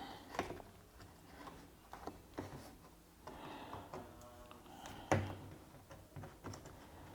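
Faint scattered clicks and light scraping from hands working at a front-load washing machine's rubber door seal and metal lip, with one sharper knock about five seconds in.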